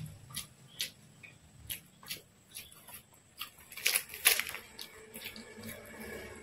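Close-miked eating sounds: wet chewing and mouth clicks, then a crackly tearing as a puffed, fried poori is ripped apart by hand about four seconds in, the loudest sound here. Near the end, a soft wet squish as a piece of poori is dipped into gravy.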